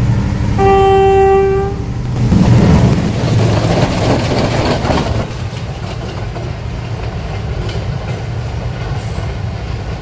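A passenger train approaching with a low rumble, its horn sounding once in a steady blast of about a second. The rumble and rush of the wheels on the rails then grow loud and run on steadily.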